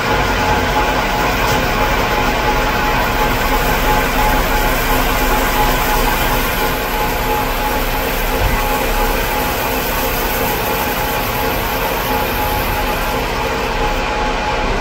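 Metal lathe running steadily under power, its motor and gear train giving a constant machine noise with a few steady tones, while the tool cuts a spinning hydraulic jack cylinder.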